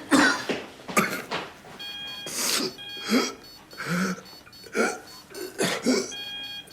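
A man coughing and choking hard, in harsh hacking coughs about once a second: he is coughing up blood. From about two seconds in, a steady electronic beeping tone sounds on and off beneath the coughs.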